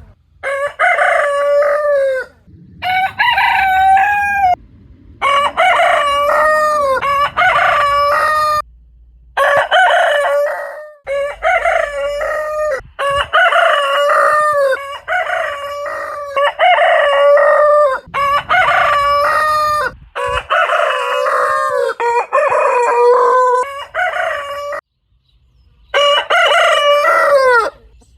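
Roosters crowing, one full cock-a-doodle-doo after another, about a dozen crows in quick succession, each one cut off abruptly before the next begins.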